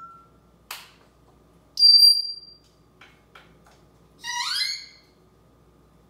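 African grey parrot whistling: one loud, high, steady whistle about two seconds in, then a quick run of rising chirps a little past four seconds, with a few short clicks between.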